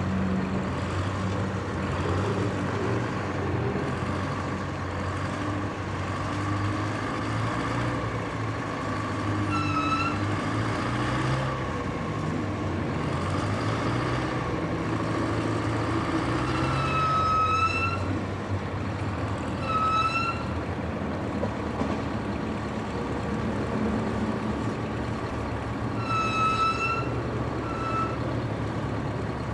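Heavy engine running steadily, with short high-pitched toots sounding about six times.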